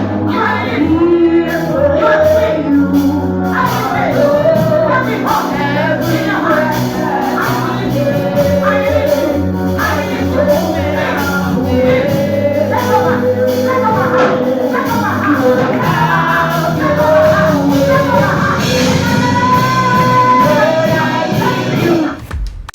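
A song with singing over instrumental backing, a sung melody over steady sustained bass notes; it cuts off abruptly near the end.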